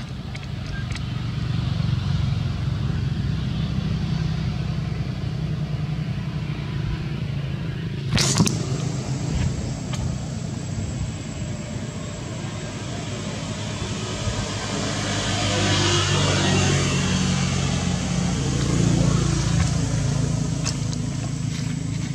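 Motor vehicle engine running with a steady low hum. A short sharp noise comes about eight seconds in, and a vehicle passes, swelling and fading, in the second half.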